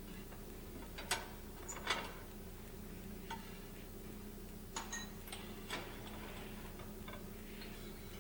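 Scattered light clicks and clinks of laboratory glassware and clamps being handled, the clearest about one and two seconds in and a few more a little past the middle, over a faint steady hum.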